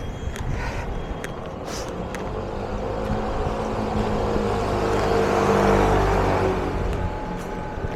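A motor vehicle passing on a city street: its engine and tyre noise grow louder to a peak about five to six seconds in, then fade, with a few small clicks early in the street noise.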